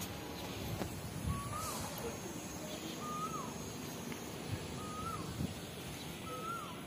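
A bird calling over and over: a short whistled note that holds level and then drops, repeated roughly every one and a half to two seconds, with a fainter, lower falling note now and then.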